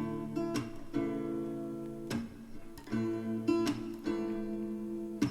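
Background music: an acoustic guitar strumming chords about once a second, each chord left to ring, in an instrumental gap between sung lines.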